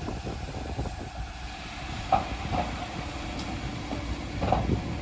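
Heavy machinery at a concrete pour running with a steady low rumble and hiss, with a few brief louder sounds about two seconds in and again near the end.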